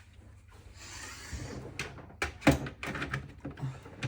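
Lenovo ThinkCentre PC case's front panel being handled and fitted back on: a brief scraping about a second in, then a run of sharp clicks and knocks, the loudest about halfway through.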